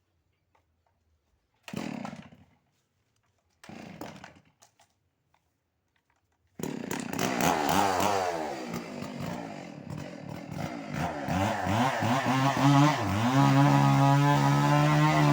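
Stihl MS 381 two-stroke chainsaw being started: two short bursts about two and four seconds in, then the engine catches at about six and a half seconds and runs, its pitch rising and falling before settling to a steady note near the end.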